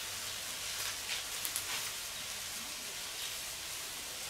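Vegetables sizzling in a cast-iron pan over glowing charcoal: a steady frying hiss with a few faint crackles.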